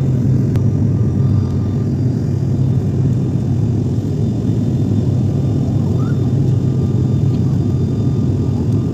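Steady cabin drone of a high-wing turboprop airliner in cruise flight: a loud, even low hum from the engines and propellers, with a faint steady whine above it.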